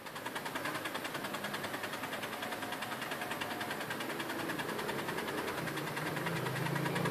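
HP LaserJet M402 laser printer running with a fast, regular clicking from its drive gears, several clicks a second: the gear click noise fault.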